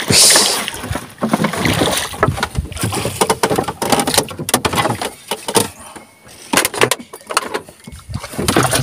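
A hooked snapper splashing at the water's surface beside a wooden boat as it is reeled in and netted, with a loud splash at the very start followed by irregular splashes and knocks.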